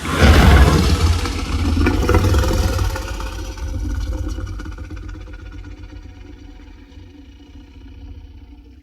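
Designed basilisk monster sound effect: a loud hit with a deep rumble that begins suddenly and fades slowly over about eight seconds.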